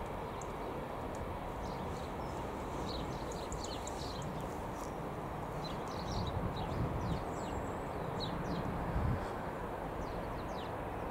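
Low steady rumble of a departing LNER High Speed Train's diesel power car, with many short high bird chirps over it from a few seconds in.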